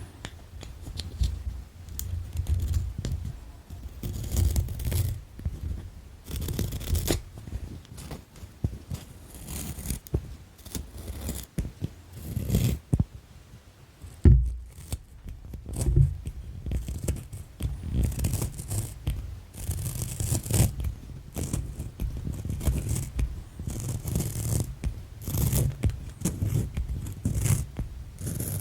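Colored pencils scratching against paper in quick, irregular strokes, with two sharper knocks a little past halfway.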